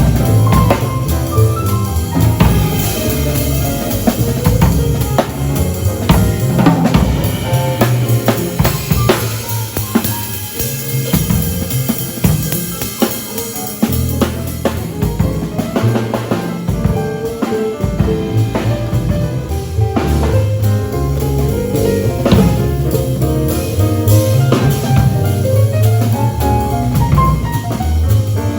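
Acoustic drum kit played live in a jazz style, with bass drum, snare and cymbals throughout, and pitched notes sounding beneath the drums.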